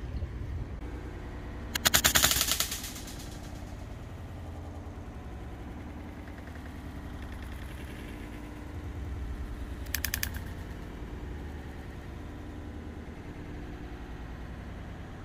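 Brocock Atomic XR .22 PCP air rifle fired about two seconds in: a sharp crack with a short rattling tail. A second, weaker crack comes about ten seconds in.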